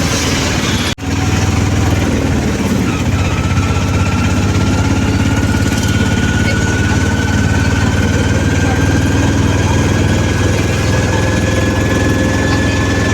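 Auto-rickshaw's small engine running steadily, heard from inside the cabin while riding, with a faint whine rising slowly in pitch from about three seconds in. The sound cuts out briefly about a second in.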